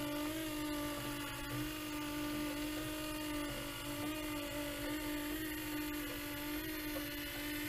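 Small electric motor of a model cable car drive humming steadily, one slightly wavering tone with overtones above it.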